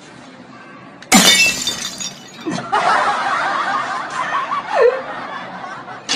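A sudden loud crash about a second in, with a crackling high ring that fades over about a second, followed by several seconds of laughter.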